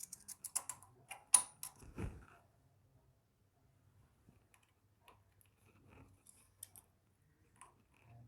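Light metallic clicks and taps of tools and parts on a small motorcycle engine while its cam-sprocket timing marks are being lined up: a quick run of clicks with one duller knock in the first two seconds, then scattered single clicks.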